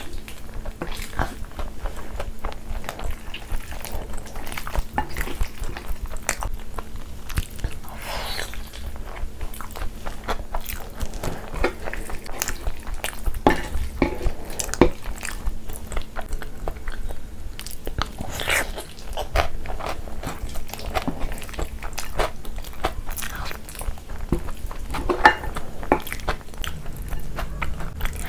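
Close-miked chewing of mouthfuls of mac and cheese mixed with Flamin' Hot Cheetos, with a few sharper clicks of a spoon scooping from a glass bowl.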